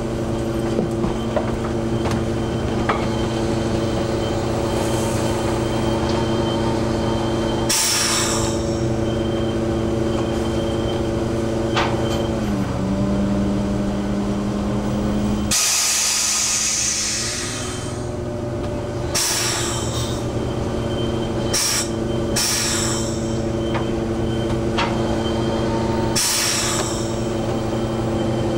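Hydraulic trap hauler pulling in a sablefish trap line, running with a steady mechanical whine. The pitch drops about halfway through and comes back up a few seconds later as the load changes. Several brief rushing noises cut across it, the longest just after the pitch drops.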